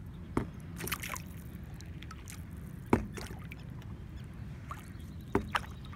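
Stand-up paddleboard paddle strokes: the blade dipping into calm water and lifting out with splashes and dripping, the sharpest about three seconds in and a pair near the end, over a low steady rumble.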